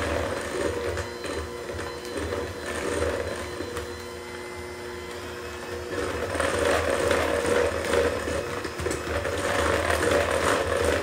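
Electric hand mixer running steadily, its beaters whirring through thin cake batter in a bowl; the sound grows louder about six seconds in.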